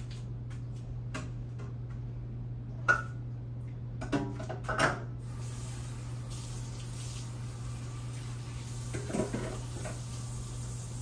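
Kitchen work sounds: a few sharp knocks of dishes or pans, then a steady hiss of a tap running from about five seconds in, with more clatter near the end. A low electrical hum runs underneath throughout.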